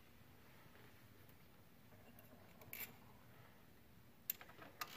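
Near silence broken by a few faint clicks and ticks of a ground wire's ring terminal and bolt being handled at an AC compressor, with one sharper click near the end.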